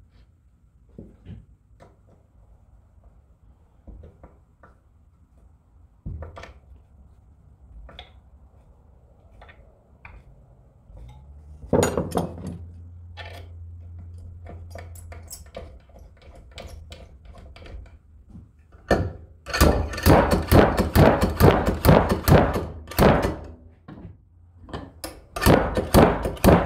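Slide hammer being worked to pull the thermostat out of a transmission thermostat block: scattered knocks and clinks, then a fast run of repeated metal impacts, about five a second, lasting about four seconds, and another short run near the end. The thermostat is starting to come loose.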